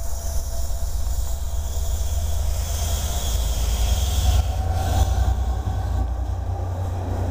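Class 67 diesel locomotive hauling a rake of Pullman coaches past at close range: a heavy low rumble with a high hiss that grows loudest about four to five seconds in as the locomotive goes by, then the coaches rolling past.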